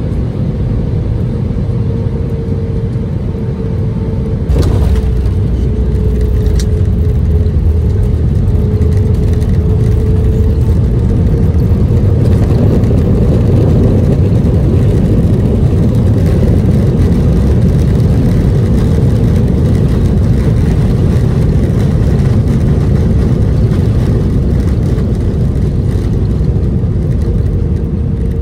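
Airbus A319 cabin noise on landing: steady jet engine and airflow noise with a faint steady hum, then a sudden thump about five seconds in as the wheels touch down. After that the noise grows louder and holds while the airliner slows on the runway, easing off near the end.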